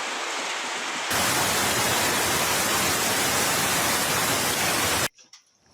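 Strong wind and driving rain buffeting the microphone as a steady rush of noise, which jumps louder about a second in and cuts off abruptly near the end.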